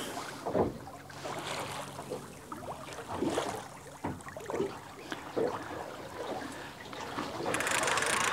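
Small waves lapping and splashing against the hull of a small boat, with a louder rush of water noise near the end.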